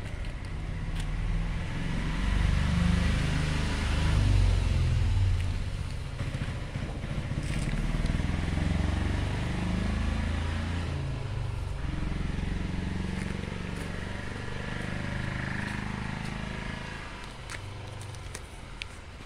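A motor vehicle's engine running nearby, its pitch shifting up and down as it revs. It is loudest in the first few seconds, comes up again later, and fades near the end.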